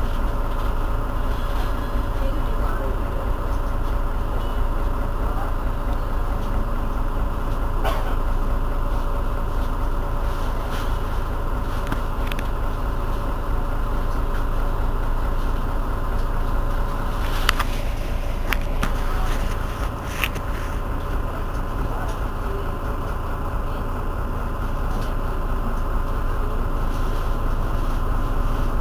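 Irisbus Citelis 12 city bus engine idling steadily while the bus stands at a stop, with a few short sharp clicks about two-thirds of the way through.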